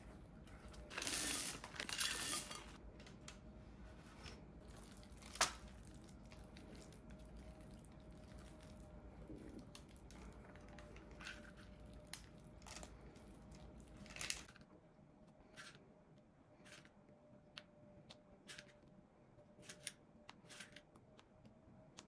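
Kitchen handling sounds: two short bursts of crinkling or tearing about a second in, a sharp click about five seconds in, then scattered light clicks and taps, over a faint steady hum.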